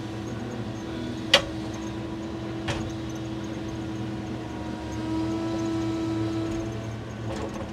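Hydraulic timber crane working, heard from its cab: a steady hum of the hydraulics with a held tone that grows louder about five seconds in. Two sharp clicks, a little over a second apart.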